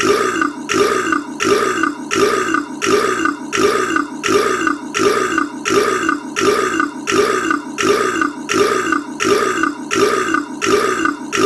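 A man's short burp looped over and over, about two burps a second, each one identical.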